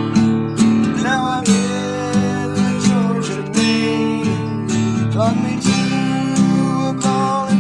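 Acoustic guitar strumming a steady country rhythm, with a lead melody line that bends up and down in pitch over it.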